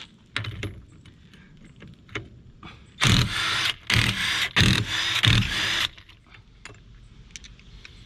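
Impact wrench run in several short bursts over about three seconds, loosening the golf cart's wheel lug nuts. It is preceded by a few light metallic clinks.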